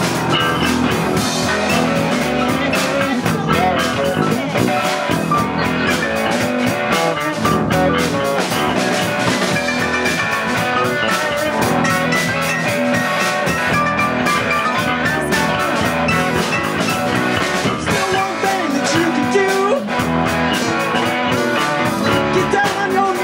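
Live band playing a blues-rock cover: electric guitar over a drum kit and keyboard.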